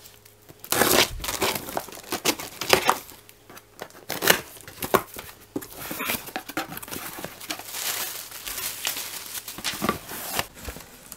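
Scissors slitting the packing tape on a cardboard box, with tape tearing and the cardboard flaps scraping and rustling as they are pulled open: a run of irregular rasping strokes.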